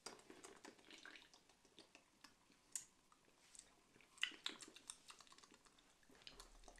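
Faint drinking sounds from opened aluminium cans of a carbonated energy drink: small scattered clicks, sips and swallows, a couple of them a little louder around three and four seconds in.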